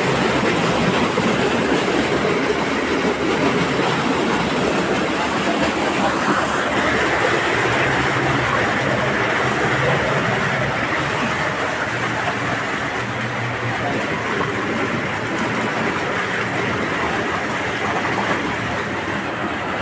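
Underground cave stream rushing and splashing over rocks close by: a loud, steady rush of water that eases slightly over the second half.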